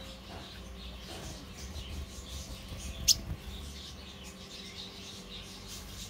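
Small birds chirping with faint, thin high calls, and one sharp, much louder high note about three seconds in.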